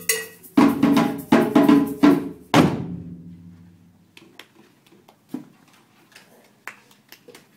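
A class of djembes struck together in a short run of about six hits, the last at about two and a half seconds ringing out as the piece ends. After that only a few faint taps are heard.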